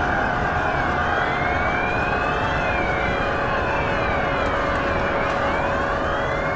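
Several police sirens wailing at once, their pitches sliding up and down out of step with each other, over a steady background rumble.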